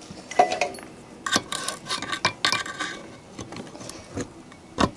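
Metal clinks and scrapes as engine parts are handled inside an open small-engine crankcase, ending in one sharp metallic knock near the end that is the loudest sound.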